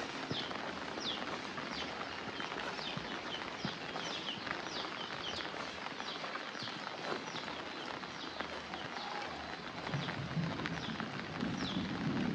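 Steady rain hiss with a bird repeating a short falling chirp about twice a second. A low rumble builds near the end.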